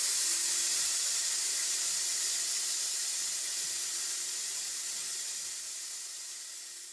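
Train air brake venting: a loud, steady hiss of escaping compressed air that began suddenly and slowly fades.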